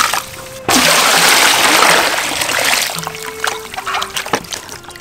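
Water poured into a large aluminium basin of vegetables, a steady splashing pour lasting about two seconds, then lighter sloshes and splashes as a hand moves the vegetables in the water.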